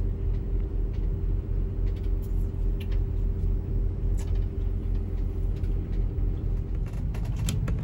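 Steady low engine and road rumble heard inside the cabin of a slowly moving vehicle, with a faint steady hum over it.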